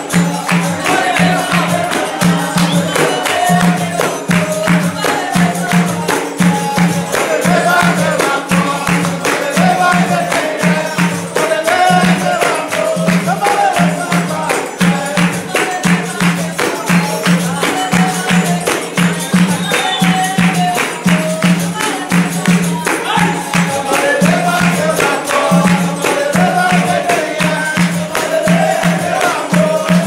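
Capoeira roda music: berimbau and pandeiro playing a steady pulsing rhythm, with hand-clapping and voices singing along.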